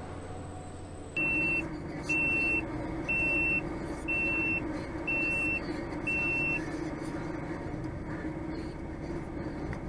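DAF XF truck's diesel engine running steadily from about a second in, with six short, high electronic beeps about a second apart that then stop.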